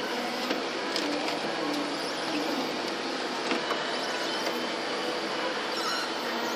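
Bras two-bowl granita machine running: a steady mechanical whir from its motors and refrigeration, with a few faint clicks.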